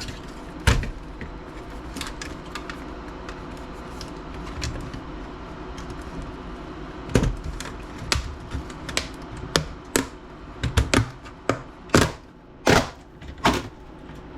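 Irregular sharp clicks and knocks of hard plastic laptop case parts being handled and pried apart by hand. A few isolated clicks at first, then busy clattering from about halfway through.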